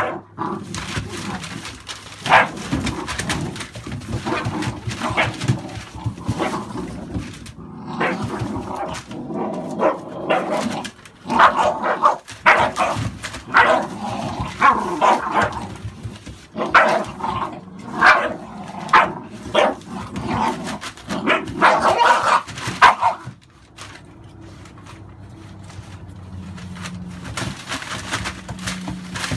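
Two American Staffordshire bully puppies play-fighting, with short yappy barks and whimpers as they tug at a cloth, and newspaper rustling under their feet. The barking is busiest in the middle and dies down for the last few seconds.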